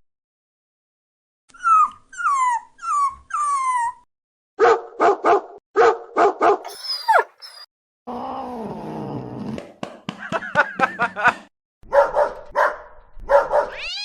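Dog yipping and barking in short runs, mixed with falling whining cries, in separate bursts with silent gaps between them.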